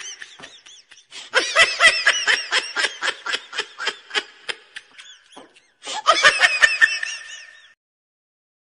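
High-pitched laughter, a rapid run of quick 'ha-ha' pulses about five a second, in bouts broken by short pauses about a second and five and a half seconds in. It stops shortly before the end.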